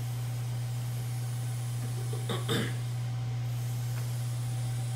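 Steady low room hum. About two and a half seconds in there are two brief knocks, handling noise as the camera is approached and touched.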